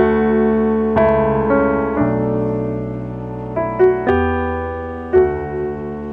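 Background music: slow piano, held chords with new notes struck every second or so.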